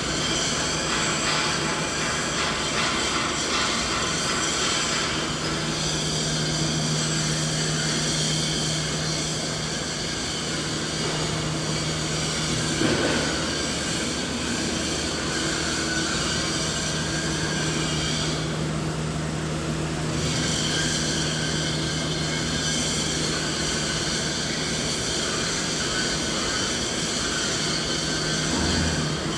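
Continuous machine noise used as a masking sound: a steady mechanical drone with a constant hum under a broad hiss. The high hiss thins out briefly about two-thirds of the way through.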